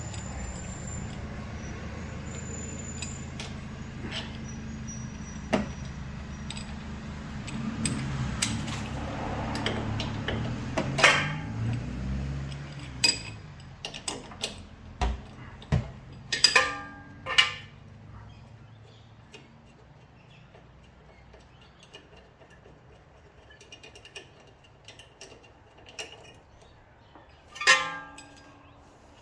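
Hand tools and steel parts clinking and clanking while suspension bolts are undone, a few sharp metallic clanks with a short ring, loudest in the middle and near the end. For the first part a steady low motor hum runs under them, then slides down in pitch and fades out about twelve seconds in.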